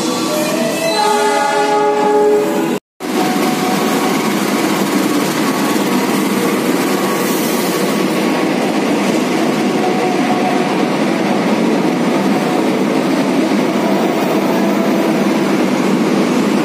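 Diesel locomotive and passenger coaches of a train rolling into a station along the platform, a dense steady rumble and rattle of wheels and cars going by. Over the first three seconds several held tones shift in pitch. The sound then cuts out completely for an instant.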